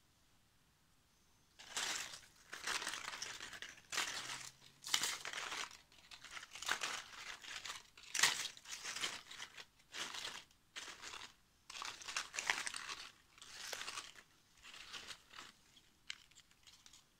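Dry, papery physalis (Chinese lantern) husks crinkling and rustling as they are picked up and handled, in irregular bursts that start about a second and a half in and stop shortly before the end.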